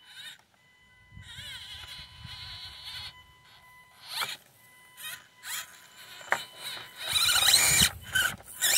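Axial SCX24 micro RC crawler's upgraded P90 electric motor and drivetrain whining in short bursts of throttle as it crawls over rocks, the pitch wavering with the load. The longest and loudest burst comes near the end, with a faint steady high tone underneath throughout.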